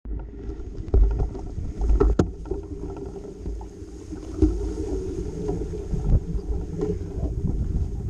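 Steady low rumbling and jolting knocks of travel over a rough off-road track, with wind on the microphone. A few heavy thumps stand out, about one and two seconds in and again after four seconds.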